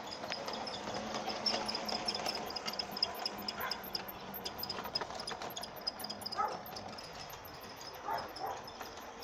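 Lionel G scale Thomas the Tank Engine model train running on its track: a low motor hum with a quick, regular ticking. A few short high whines come in now and then.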